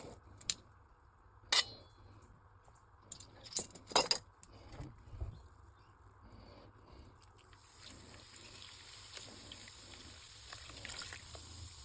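A few sharp clinks and knocks in the first four seconds, then, from a little past halfway, a steady sizzle of onions and bell peppers frying in a hot pan.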